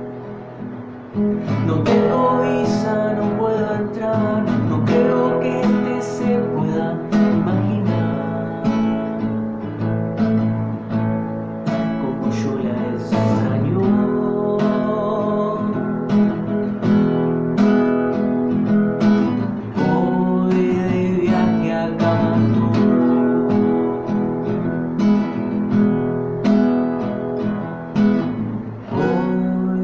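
Nylon-string classical guitar strummed in a steady rhythm of chords, each strum sharp and ringing on. A man's voice sings along in places.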